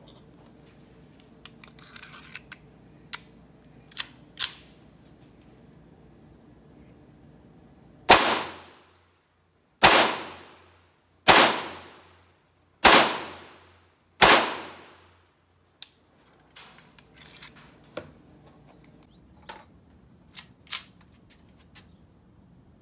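Five shots from a Colt Match Target .22 LR semi-automatic pistol, about a second and a half apart, each trailing off in an echo under a metal roof. A few small clicks and knocks come before the shots and again after them.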